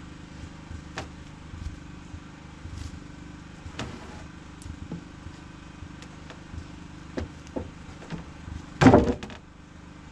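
A fire-charred wooden deck block being handled and wedged under spruce deck boards: scattered light knocks of wood on wood, then a louder quick cluster of knocks near the end. A steady low hum runs underneath.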